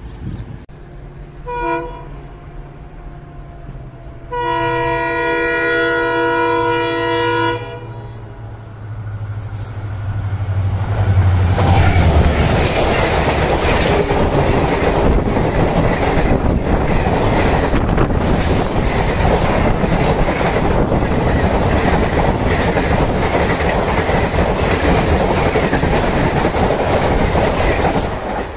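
Indian Railways diesel locomotive horn: a short toot, then a long blast a few seconds later. The locomotive's engine rumble builds as it comes close, and a passenger train then passes at high speed with the loud, steady clatter of coaches on the rails. The clatter is the loudest part and stops abruptly near the end.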